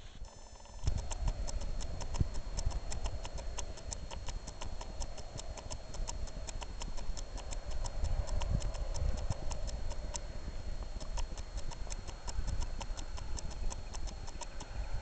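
Wind buffeting the microphone with an uneven low rumble, and over it a fast, very even ticking of about four sharp clicks a second.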